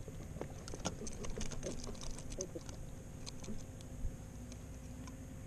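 Light, scattered clicks and ticks of a small catfish being handled and unhooked by hand on a fishing line.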